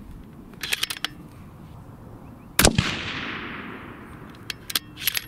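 A single rifle shot from a 6.5 Creedmoor bolt-action rifle with a muzzle brake, about two and a half seconds in, its report echoing away over the next second and a half. A few sharp clicks come before and after it.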